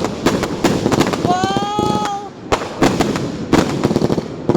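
Firecrackers and fireworks going off in a rapid, irregular string of sharp bangs and pops, overlapping one another.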